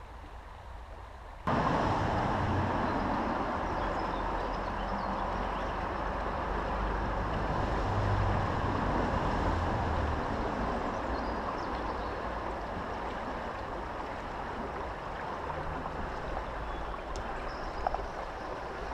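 Steady rushing of a fast-flowing river, coming in abruptly about a second and a half in after a quieter start.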